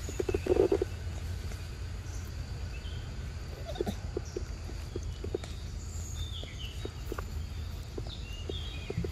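A macaque chewing and smacking on soft ripe mango flesh, with short wet clicks throughout and the loudest burst of smacking just after the start. Birds chirp briefly in the background.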